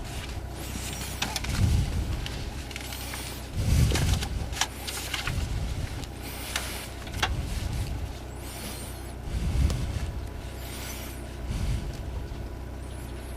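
Rover 214 rally car's engine idling, heard from inside the cabin as a steady low hum, with short bursts of noise every couple of seconds.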